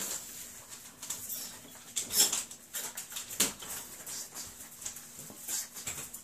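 Whippet puppies eating together from a shared metal bowl: lapping, chewing and shuffling in wood shavings, with scattered sharp clicks.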